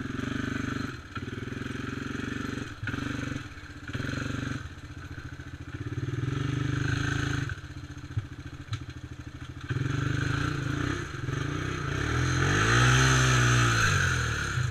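Honda quad's engine under short on-off bursts of throttle as it crawls along a rough trail, dropping back toward idle between them. There are two sharp knocks in the middle, and near the end a longer rev rises and falls in pitch.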